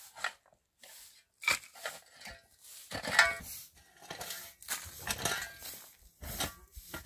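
Metal shovel blade scraping and jabbing into stony, gravelly earth in irregular strokes, with a sharp clink of steel on stone about three seconds in.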